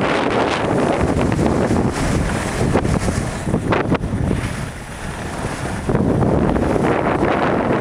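Wind buffeting the camera microphone as the camera moves downhill on a ski slope: a loud, steady rushing that eases for a moment about five seconds in.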